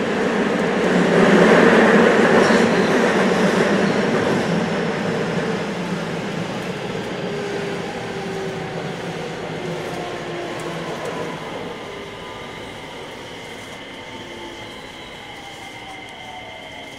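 Running noise heard from inside a JR West 321 series electric train with a Hitachi IGBT VVVF inverter. The rumble swells about two seconds in, then fades as the train slows. Through the second half the traction motor and inverter tones fall steadily in pitch.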